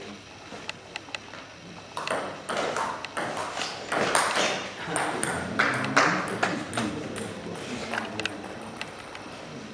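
Table tennis ball ticking on the table as the server bounces it, then a rally of quick clicks of the ball on bats and table from about two seconds in, with loud voices over the rally.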